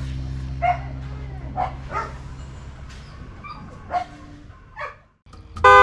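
Several short, high animal yelps, roughly one a second, over a low steady hum that slowly fades.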